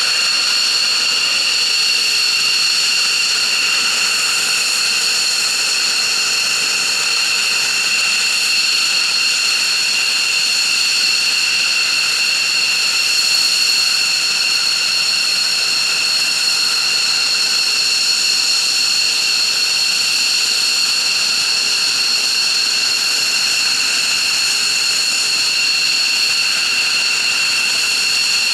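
F-15J Eagle's twin turbofan engines idling on the ground: a loud, steady high-pitched whine made of several held tones.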